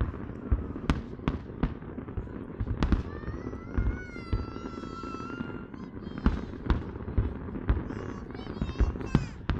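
Aerial fireworks bursting: a rapid, irregular series of sharp bangs and pops. About three seconds in, a high whistle rises and holds for a couple of seconds.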